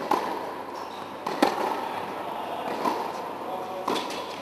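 Tennis ball being struck with racket strings and bouncing on an indoor hard court during a rally: four sharp pops about every second and a half, echoing in the hall.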